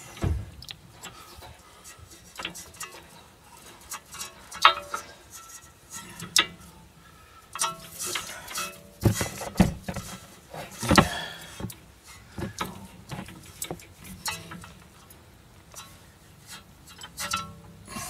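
Spanners clinking and knocking on a car's rear brake caliper bolt and slide pin as the bolt is worked loose: irregular metal clicks and knocks, some with a short ring, the loudest about 11 seconds in.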